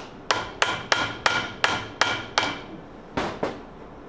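Hammer blows on the seized piston and cylinder of a two-stroke golf cart engine, trying to drive the stuck piston free. There are eight quick strikes that ring briefly like metal, a short pause, then two more.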